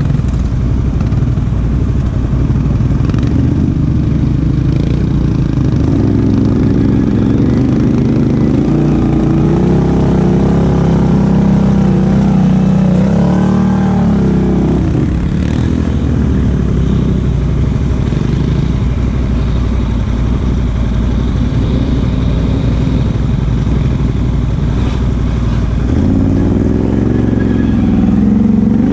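Can-Am Outlander XMR 1000 ATV's V-twin engine, fitted with a Big Gun exhaust, running under load through mud. The revs climb and fall in repeated waves about a third of the way in and rise again near the end.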